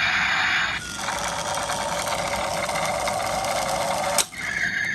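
Nikko Road Rippers toy car's electronic sound effects played through its small replacement speaker: a lo-fi buzzing noise in bursts that start and stop abruptly, with a click a little after four seconds in and a short higher buzz near the end.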